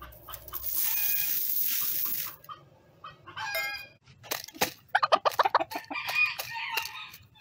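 A steady hiss for about two seconds, then a chicken clucking, with sharp ticks of its beak pecking flax seed against a plastic container in the second half.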